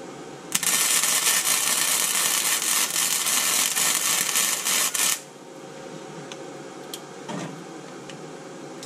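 Wire-feed welder arc crackling steadily for about four and a half seconds as a bead is laid on a steel truck axle housing, stopping abruptly, followed by a few light clicks.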